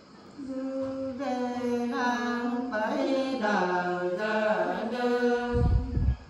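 Women's voices singing a Nùng folk song unaccompanied, in long held notes that waver and slide slowly between pitches. A low rumbling noise comes in near the end.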